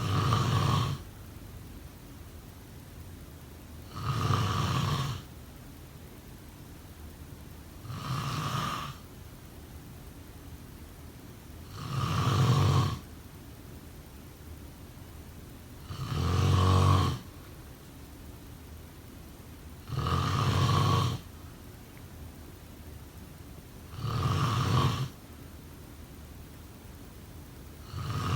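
Snoring in a slow, even rhythm: seven snores about four seconds apart, each lasting about a second, with an eighth starting at the very end and a faint steady hiss in the gaps.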